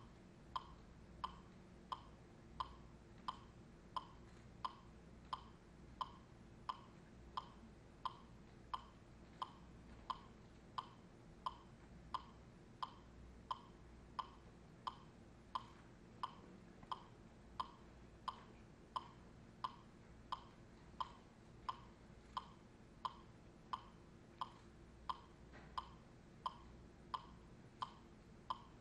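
A steady beat of single sharp, pitched clicks, about three every two seconds, like a metronome or click track keeping time for the dancers, over a faint room hum.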